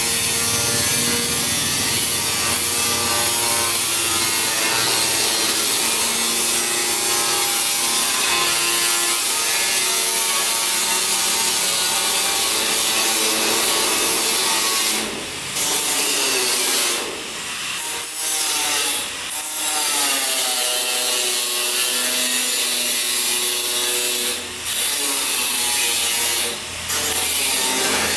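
Steel plate being cut: a continuous harsh cutting noise with shifting squealing tones. It breaks off briefly a few times about halfway through and twice more near the end.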